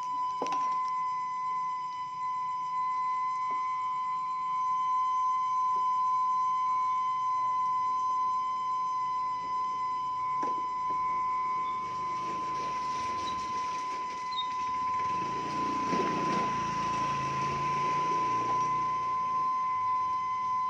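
Kue putu seller's steamer whistle, sounding one steady high tone the whole time. A rushing noise swells over it from about twelve seconds in.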